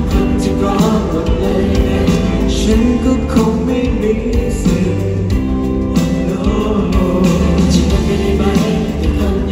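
Live pop song played loud through an arena sound system and recorded from the audience: band accompaniment with singing over it.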